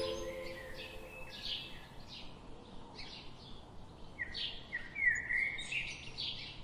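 Birds chirping in short, repeated calls, with the last held chord of the slowed music fading out in the first second.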